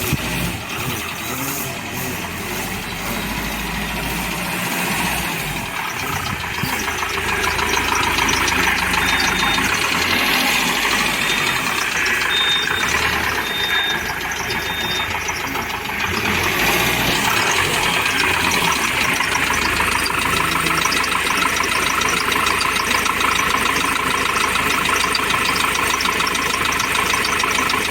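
Ford Transit van's engine running with a loud, rough knocking noise, an "ugly noise" that seems to come from the top of the engine. The mechanic suspects a leaking injector sealing washer, a bad rocker arm or an injector. A few short high beeps sound midway.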